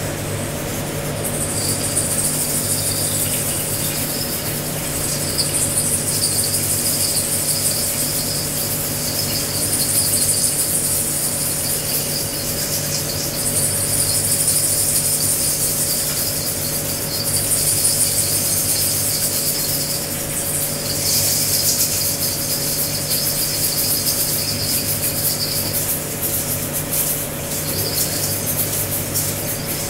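A group of people shaking egg shakers and other hand-shaken percussion together in a free improvisation: a continuous dense rattle that swells and eases every few seconds.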